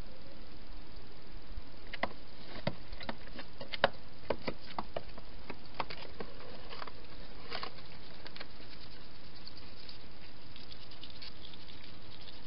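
A hedgehog feeding and moving about inside a plastic feeding box: irregular sharp clicks and taps, bunched in the first half, over a steady hiss.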